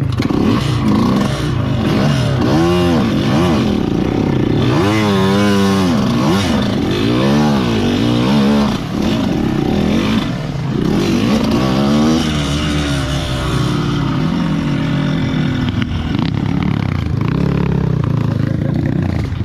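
Two-stroke trail motorcycle engines revving again and again, the pitch climbing and dropping with each blip of the throttle over a steady low running sound.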